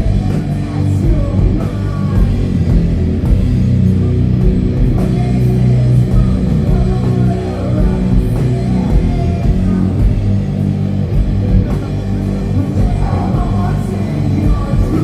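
Doom metal band playing live: loud, dense guitars and bass over drums.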